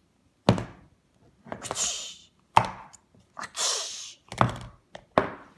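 Hard plastic Play-Doh tubs and toys knocking against a wooden tabletop: several sharp, irregular knocks, with two short hissing noises in between.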